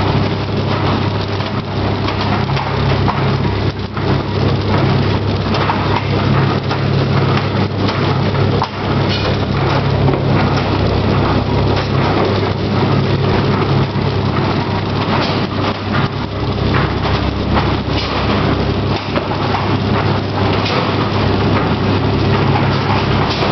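PFM Hurricane horizontal flow wrapper running, a steady machine hum with continuous irregular clatter and ticking.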